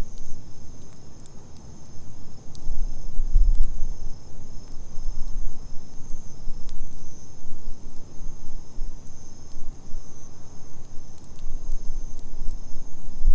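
Wood campfire with scattered sharp crackles, over a steady high trill of insects and a low rumble that swells about three seconds in.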